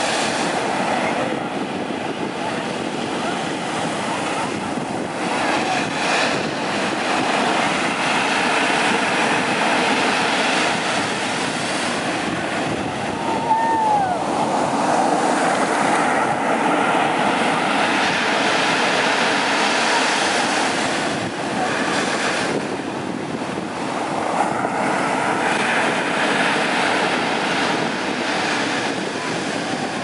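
Atlantic surf breaking and washing up the beach: a continuous rush of water that swells and eases as each wave breaks and runs out over the sand.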